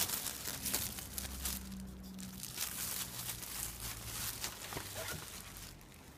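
Clear plastic bag crinkling and rustling as a new pleated cabin air filter is pulled out of it, dying away near the end.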